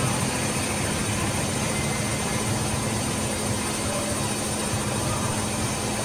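Electrolux EWF85761 front-loading washing machine running with water and laundry in the drum, a steady hum with a constant low tone.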